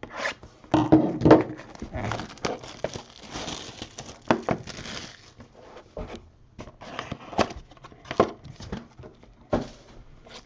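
Trading card packaging handled at close range: crinkling and rustling of wrapping with a run of irregular clicks and knocks as the next box is got out and opened.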